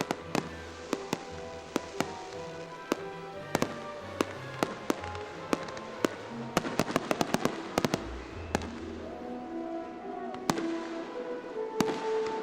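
Fireworks going off in quick succession, sharp bangs and crackles that come thickest about six to eight seconds in, with music playing underneath.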